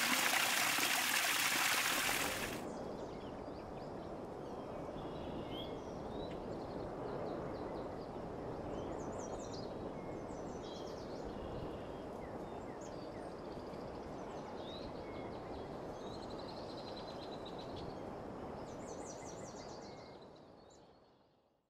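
Running water: a loud, hissing rush for about the first two seconds, then a softer steady stream with many birds chirping briefly over it. It all fades out near the end.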